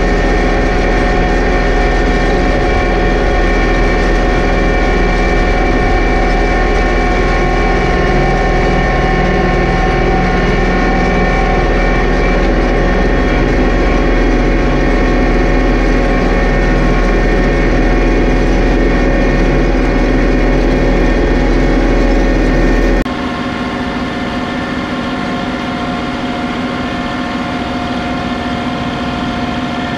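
John Deere 2038R compact tractor's three-cylinder diesel engine running steadily while pulling a chain harrow drag across pasture. About three-quarters of the way through the sound abruptly drops and loses most of its low rumble, then carries on steadily.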